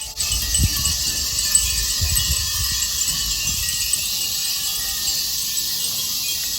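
Fūrin wind chimes tinkling lightly over a steady, dense drone of summer insects.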